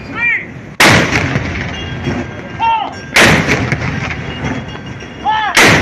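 Warship guns firing a gun salute: three loud blasts about two and a half seconds apart, each dying away slowly.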